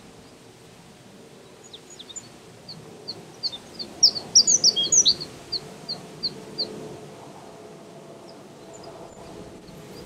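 Male Japanese reed bunting singing: one song of short, high chirping notes starting about two seconds in, crowding into a loud quick jumble in the middle and trailing off in a few evenly spaced notes. A faint low hum runs underneath.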